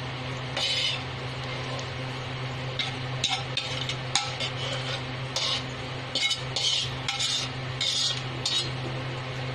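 Metal ladle scraping the inside of a metal wok as the last of a sauce is scooped out, in a series of short scrapes, over a steady low hum.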